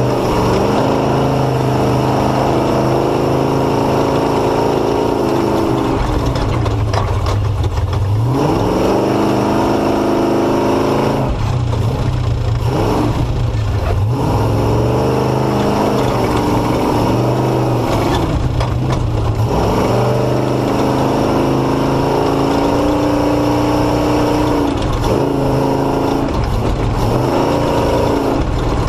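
Truck engine revving up and down under load while driving over rocks and through deep silt, its pitch rising and falling again and again.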